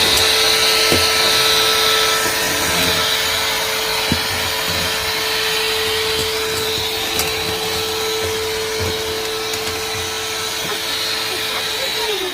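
Vacuum cleaner motor running with a steady hum and high whine, then switched off near the end and winding down in falling pitch. A few light knocks are heard over it.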